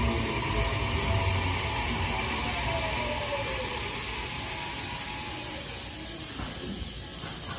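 Tokyu 7000 series train's Toshiba IGBT VVVF inverter and traction motors whining under braking. Several tones fall in pitch as the train slows, over wheel and rail rumble that gradually gets quieter.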